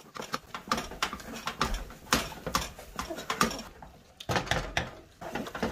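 Wooden spatula scraping and slapping against a metal skillet in quick, irregular strokes while stiff semolina dough is stirred and mashed on the stove, the semolina cooked down into a thick dough for suji kakara filling.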